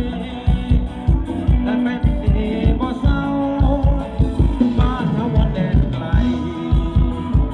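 Thai ramwong folk-dance song from a live band: a singer's voice over a steady, quick drum beat.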